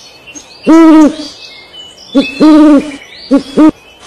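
An owl hooting: five calls, two longer ones and three short ones, each arching slightly up and down in pitch.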